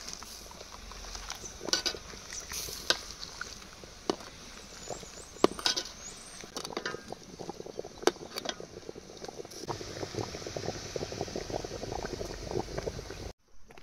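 A pot of pork curry bubbling as it cooks, with a dense fine crackle from about halfway through and scattered sharp clinks of a utensil against the pot. The sound breaks off briefly near the end.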